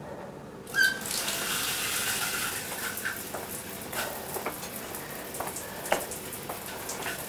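Shower turned on about a second in, the water then running as a steady hiss with a few light clicks over it.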